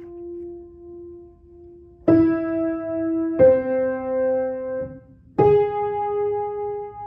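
Piano playing the alto line of a choral part, one slow note at a time: a held note fades, then new notes are struck about two, three and a half and five and a half seconds in, some doubled by a lower note.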